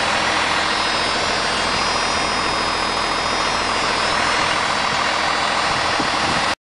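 A 1997 Dodge Ram 2500's 5.9-litre Cummins turbo-diesel inline-six idling steadily.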